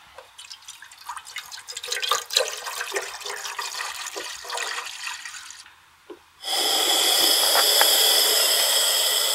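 Water poured from a plastic gallon jug into a saucepan, splashing unevenly for about five seconds. After a short pause, a loud, steady hiss with a faint whine starts and runs on.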